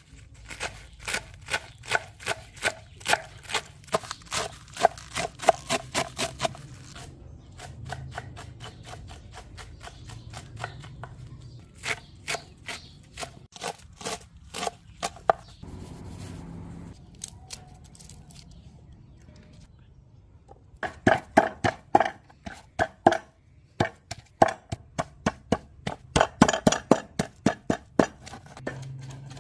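Knife chopping leafy herbs on a cutting board: quick runs of sharp strikes, about three to four a second, with a pause of a few seconds in the middle before the chopping picks up again.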